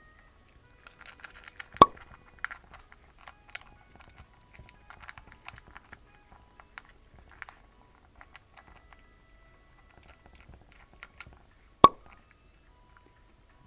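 A cat chewing and crunching its food close to the microphone, in irregular small crunches, with two sharp, loud clicks, one near the start and one near the end.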